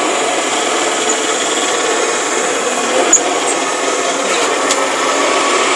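Hoover vacuum cleaner running steadily, its motor and brush making an even rushing noise, with a small click about three seconds in.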